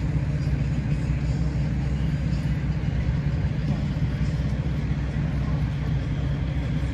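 Steady low engine rumble, running evenly without change.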